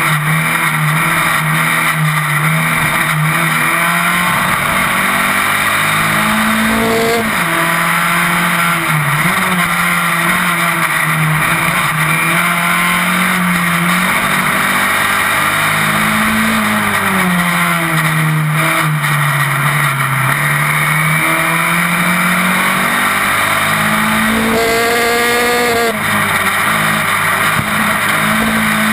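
Onboard sound of a Formula Sheane single-seater race car's engine running hard at racing speed, its note rising and falling through the corners with sharp drops as the driver lifts and shifts, and a quick climb in revs about 25 seconds in and again near the end. A steady hiss of wind and road noise runs underneath.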